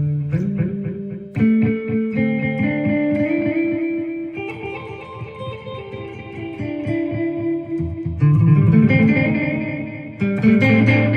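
Electric guitar, a Gibson Les Paul through a Marshall amp, played through an Electro-Harmonix #1 Echo digital delay pedal: picked notes and chords, each trailed by repeating echoes that fade away.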